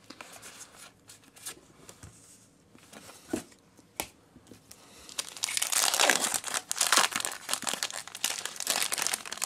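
Foil Pokémon booster pack wrapper crinkling and tearing as it is pulled open by hand, starting about halfway in. Before that come only a few faint clicks.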